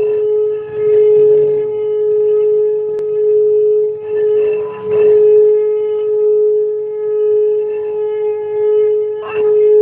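A kuali (cooking pot or wok) giving off a strange, steady horn-like hum at one pitch, unbroken and swelling slightly in loudness, with a few faint voices over it.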